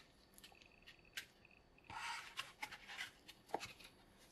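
Faint handling noise from moulded pulp packaging and a cardboard box: scattered light taps and clicks, with a brief stretch of rustling and scraping about two seconds in.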